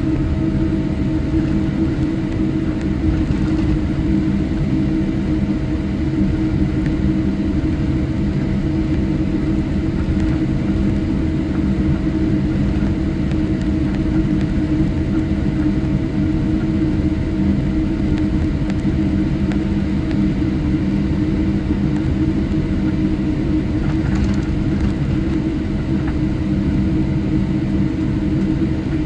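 Steady cabin hum and low rumble inside a Boeing 787-8 airliner as it taxis, with a few steady tones over it.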